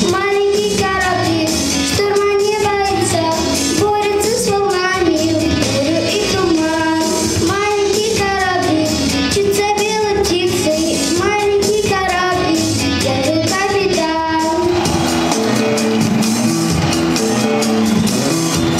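A young girl singing a song into a microphone over instrumental accompaniment; nearly fifteen seconds in her voice stops and the accompaniment carries on alone.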